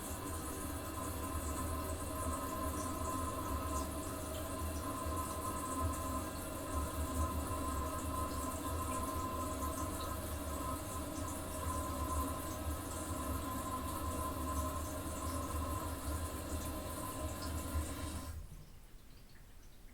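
Toilet cistern refilling after a flush in a small bathroom: water runs steadily through the fill valve with a faint steady whine. It shuts off abruptly near the end.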